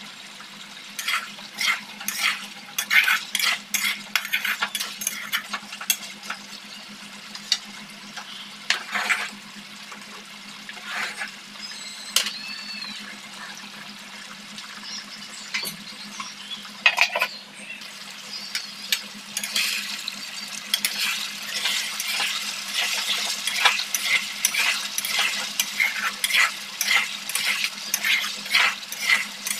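A metal spatula scraping and clattering against a metal wok while stirring chicken curry pieces as they fry. There are a few scattered scrapes early on and then quick, continuous stirring from about two-thirds of the way in.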